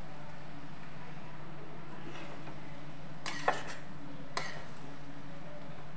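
Steel spatula stirring and tossing noodles in a steel kadhai, knocking sharply against the pan twice, about three and a half and four and a half seconds in. A steady low hum runs underneath.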